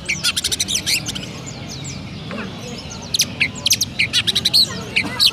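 Oriental magpie-robin (kacer) singing rapid strings of sharp, high chirps in a sparrow-like 'gereja' style. The chirps come in busy runs at the start and again over the second half, with a sparser stretch in between.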